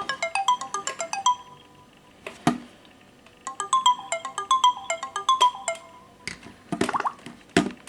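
Samsung Galaxy phone ringing with a melodic tone of quick, bright notes, played as two phrases with a pause between them. There is a sharp click about two and a half seconds in, and a few knocks near the end.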